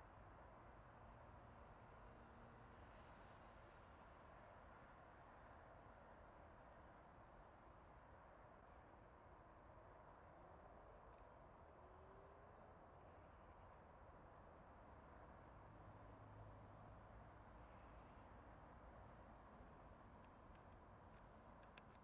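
Faint, short, high-pitched chirps repeating roughly once a second at uneven intervals over quiet outdoor background noise.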